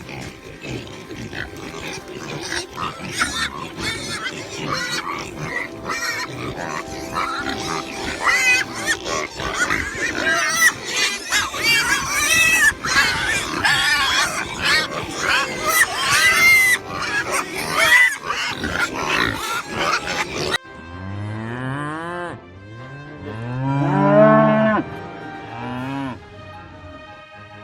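Many farm animals calling over one another in a dense barnyard chorus. About two thirds of the way through it cuts to a single cow mooing, several deep drawn-out moos.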